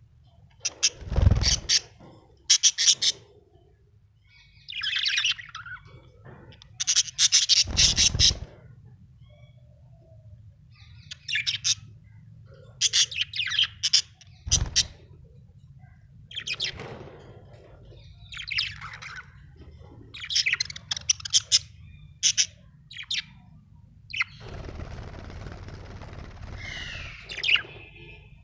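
Budgerigar chirping happily in short bursts of rapid high chirps and chatter, each a second or two long with pauses between. A longer, scratchier warble comes about three-quarters of the way through.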